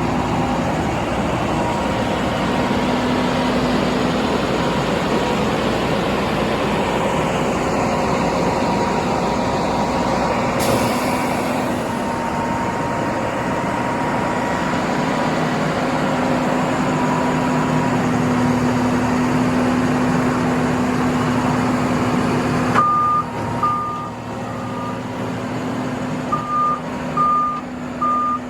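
The Mercedes-Benz diesel engine of a Gradall XL4100 wheel excavator runs steadily. Near the end the engine sound drops off, and a backup alarm beeps in two sets of three.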